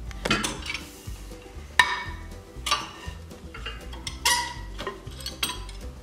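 Hand wrench on the bolt nuts of a wagon-wheel hub's metal flange: sharp metallic clinks of wrench against nut and flange, about five of them a second or so apart, each ringing briefly.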